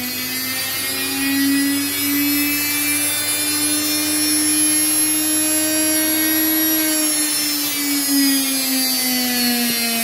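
Rebuilt brushed washing-machine motor from an Indesit running on a test stand at full power. A steady whine that rises slightly in pitch over the first few seconds, then falls slowly from about seven seconds in, as a low hum under it stops.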